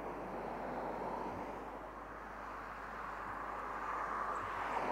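Distant jet engine noise from KC-135 Stratotankers on the runway: a steady rush with a whine that swells near the end.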